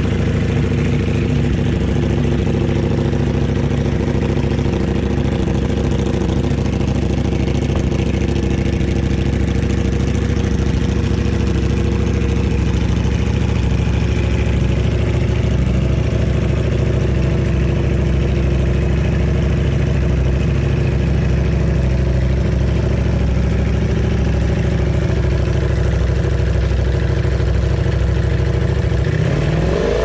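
Ducati Panigale V4's 90-degree V4 engine idling steadily through an FM Project aftermarket exhaust.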